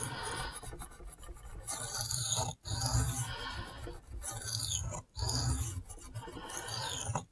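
Steel knife blade (a Spyderco Shaman in Cruwear) scraping over a sharpening stone in repeated freehand strokes, roughly one a second. The strokes are working the blade's tip, which is not yet sharpened out to the edge.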